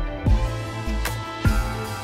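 Background music: sustained synth-like chords over bass drum hits.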